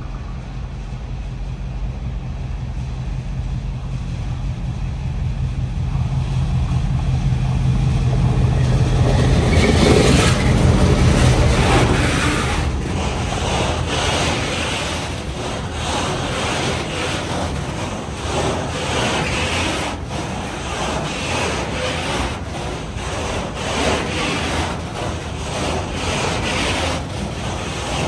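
Electric freight locomotive approaching with a steady low hum that builds to a peak as it passes. A long container train follows, rolling by close with continuous rumbling and a string of irregular clacks from the wagon wheels on the rails.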